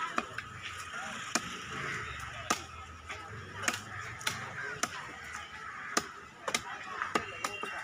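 Heavy cleaver chopping through trevally fish into steaks on a wooden chopping block: about ten sharp chops, roughly one a second, over a steady background din.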